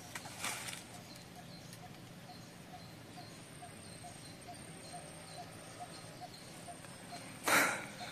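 Faint, even ticking, a little over two ticks a second, over quiet outdoor background, with a short rustling burst near the end.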